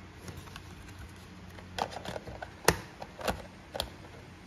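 Hard plastic polystyrene phone tray clicking and knocking as it is handled and set down on the phone box: a handful of sharp clicks, the loudest about two and a half seconds in.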